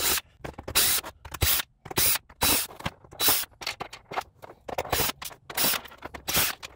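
Cordless drill/driver run in a rapid series of short trigger bursts, backing screws out of a plastic glove box.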